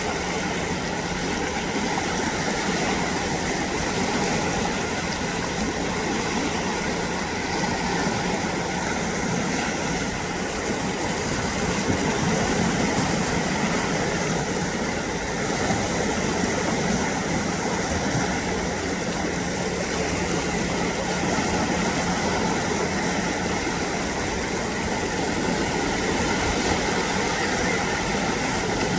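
A steady engine hum running without change.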